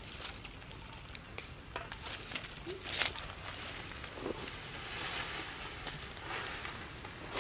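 Dry leaf litter rustling and crackling underfoot over a steady outdoor hiss, with a sharper snap about three seconds in.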